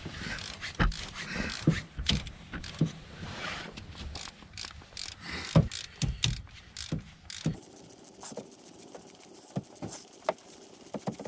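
Spark plugs being put in with hand tools: irregular knocks and clatter of a ratchet and socket on metal. About two-thirds of the way in this gives way to a quick, even run of ratchet clicks as a plug is tightened.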